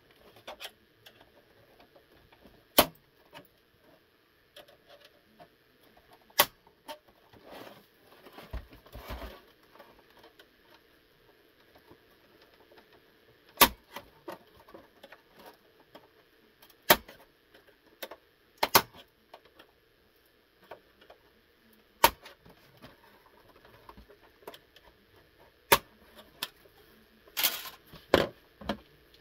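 Sharp plastic clicks and snaps, one every few seconds with a quick cluster near the end, as the plastic casing of an Xbox 360 S (Trinity) console is handled and pried apart. A softer scraping rustle comes about eight to nine seconds in.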